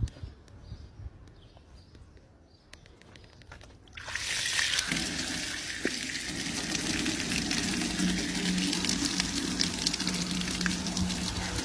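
A few light clicks, then about four seconds in a loud rush of running water starts. About a second later a steady low motor hum joins it and both keep going.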